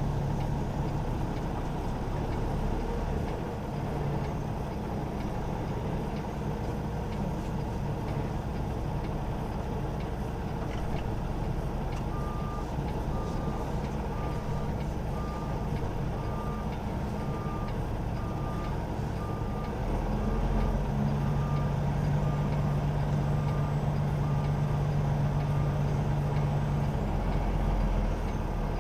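Semi-truck diesel engine running steadily while parking, with a reversing alarm beeping regularly, about three beeps every two seconds, from about twelve seconds in until near the end. The engine note rises and holds for several seconds during the backing.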